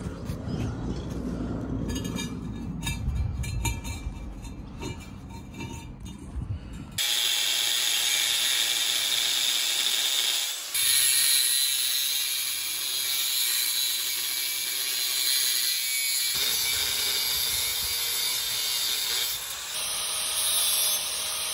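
Angle grinder with a thin 1/16-inch cut-off disc cutting through a rusty 2.5-inch steel pipe, a loud, steady, high grinding that starts suddenly about seven seconds in, after a low rumble.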